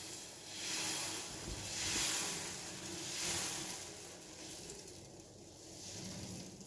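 Thin rava dosa batter sizzling as it is poured in a spiral onto a hot non-stick tawa. The sizzle swells and eases three times, then dies down over the last few seconds.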